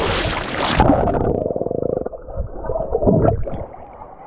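Splashing sea water that turns suddenly muffled about a second in, then dull underwater gurgling and rumbling as the microphone goes under the sea water.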